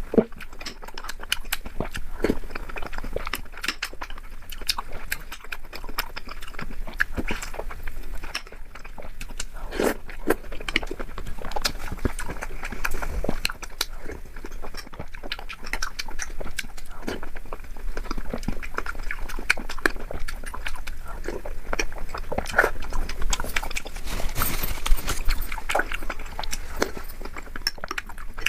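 Close-miked eating: a person chewing soft, syrupy Indian sweets, with a steady run of irregular wet mouth smacks and clicks.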